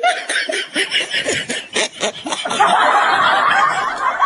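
Laughter in quick repeated bursts. From about two and a half seconds in, a louder, dense, steady sound takes over.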